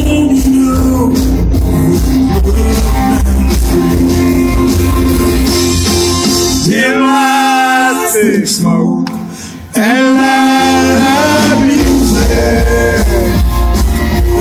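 A country band playing live with a male lead singer and electric guitars. About halfway through the bass and drums drop out for a few seconds while held, wavering notes carry on, then the full band comes back in.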